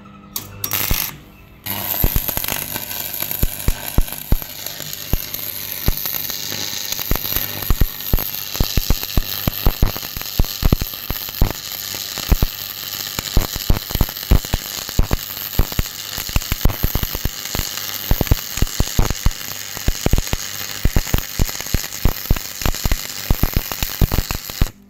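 Stick (arc) welding on steel angle: the electrode strikes briefly about half a second in, then the arc catches near two seconds in and burns steadily with a frying hiss and frequent sharp crackles, cutting off abruptly at the end.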